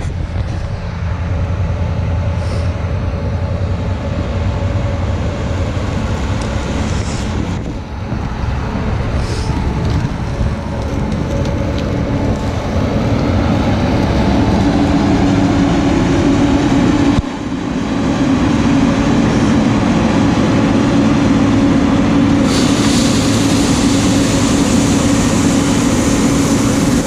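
Combine harvester and truck engines running steadily at close range as the combine comes over to unload its grain. A higher hiss joins in near the end.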